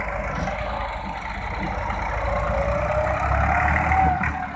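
Massey Ferguson 260 tractor's three-cylinder diesel engine working under heavy load as it pulls away with a fully loaded sand trolley. The engine note rises and grows louder, peaks near the end, then eases off.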